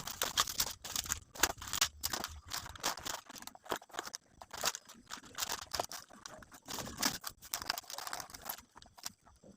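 Plastic wrapping crinkling and crackling in irregular bursts as it is handled and pulled off gift boxes, with small taps and clicks.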